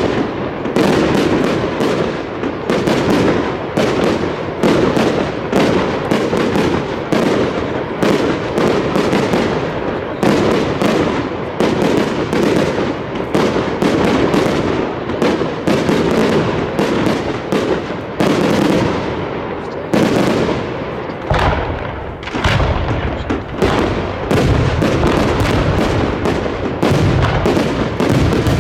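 Fireworks display firing continuously: rapid, overlapping bangs and crackles, several a second. Deeper, heavier booms join in about three-quarters of the way through.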